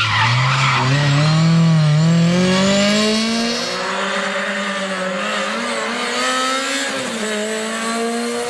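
BMW 318is E36 rally car's four-cylinder engine revving hard, its pitch dropping and climbing again several times as it lifts off and accelerates through corners.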